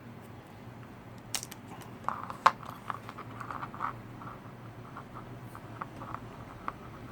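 Small clicks and short scrapes of hands and a tool working on small plastic and metal parts, as a tiny quadcopter is taken apart. The sharpest click comes about two and a half seconds in, over a steady low hum.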